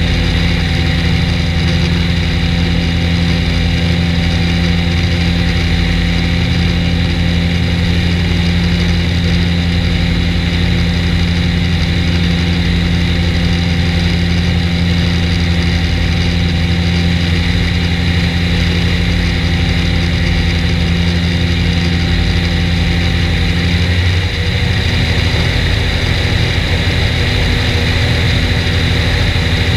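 Skyranger ultralight's Rotax 582 two-stroke twin engine and propeller droning steadily in cruising flight, heard from a mic outside on the wing strut. The engine note shifts slightly about 24 seconds in.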